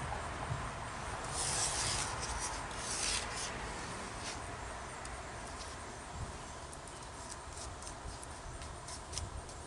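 Trowel scraping over wet cement in a few strokes, loudest about one and a half and three seconds in, with light ticks between.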